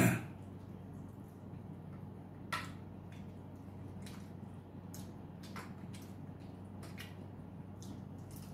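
Eating with bare hands: scattered wet smacks and small clicks of chewing and fingers picking at rice and dried fish, over a steady low hum. A brief loud sound comes right at the start.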